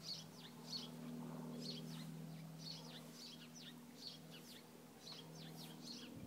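Small birds chirping, short high calls repeated about once or twice a second, over a steady low hum.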